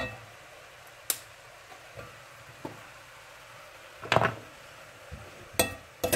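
Metal spoon knocking and scraping against a cast-iron skillet while greens are stirred: a few separate clicks, with a louder cluster about four seconds in.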